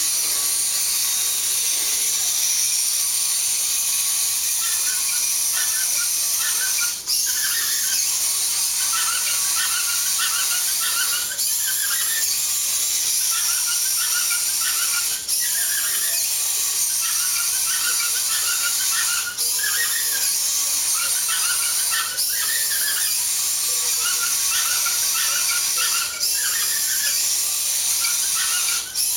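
Small wheeled robot's drive motors and gears whining steadily at a high pitch, with a brief break every three to four seconds.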